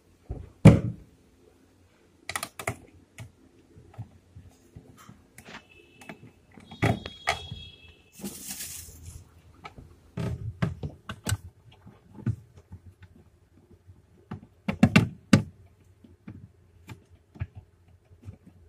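Scattered clicks, taps and knocks of hands and a screwdriver working on a refrigerator's plastic thermostat housing and its wiring, the loudest knocks about half a second in and about fifteen seconds in. A short high squeak comes about seven seconds in, followed by a brief hiss.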